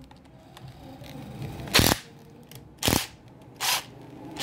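Three short, sharp metallic clacks about a second apart, the loudest first, as metal hand tools are picked up and set down.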